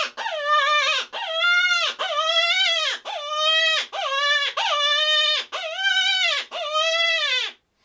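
A rabbit distress hand call, a mouth-blown predator call, sounding a series of about eight drawn-out "wah" wails, roughly one a second. Each wail jumps up in pitch, holds, then drops off at the end. These are the long, fresh-sounding cries of a rabbit in distress that open a coyote-calling sequence.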